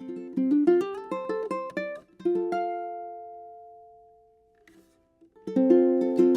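Kanileʻa KO-1 tenor ukulele played solo: a quick run of single plucked notes, then a note left to ring out and fade away. After a short silence, full strummed chords come in about five seconds in.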